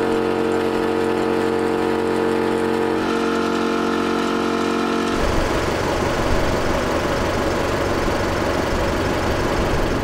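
Portable air compressor running steadily with a pitched motor hum while pumping up a 4WD's tyres after off-roading. About five seconds in, the sound turns abruptly rougher and noisier, with more low rumble.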